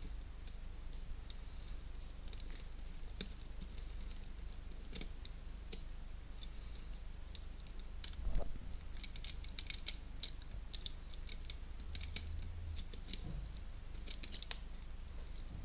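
Small, irregular plastic clicks and ticks from a Lego Technic tow truck's gears, crank wheel and boom being worked by hand, with a louder knock about eight seconds in.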